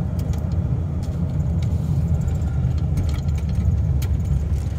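A 1998 Dodge Ram's 5.9 V8 with aftermarket exhaust, driving along and heard from inside the cab as a steady low drone that slowly grows a little louder.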